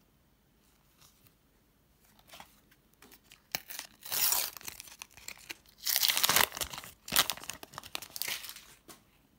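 A Panini Premier League sticker packet's wrapper torn open by hand and crinkled, in crackly bursts that start a few seconds in and are loudest around the middle.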